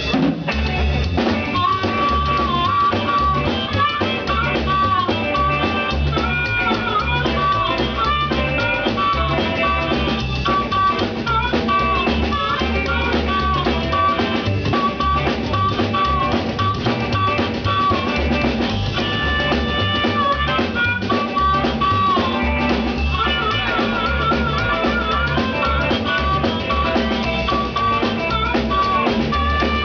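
Loud club dance music: an instrumental stretch with a steady, pounding kick-drum beat, drums and a high lead melody.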